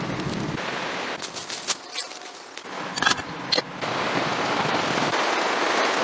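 Tinder fire crackling: scattered sharp pops, the loudest about three and a half seconds in, then a steady hiss.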